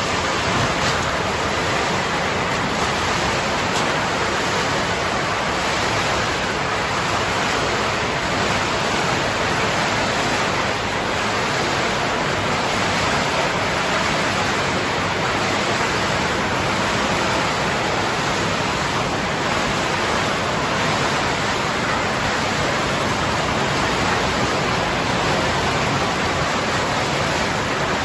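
PET bottle washing line running: a steady, even rushing noise of machinery and washing water.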